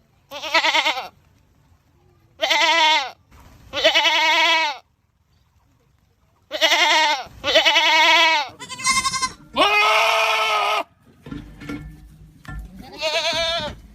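Goats screaming: about eight loud, wavering calls in a row, each under a second long, with short pauses between them.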